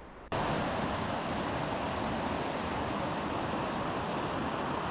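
Steady rushing of river water, starting abruptly about a third of a second in and holding an even level.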